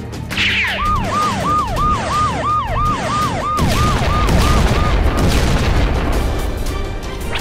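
Sound effects over music: a quick, repeating siren-like wail, about three a second, fading out after about four seconds, followed by a loud low rumble like an explosion as the toy shark is shown smoking.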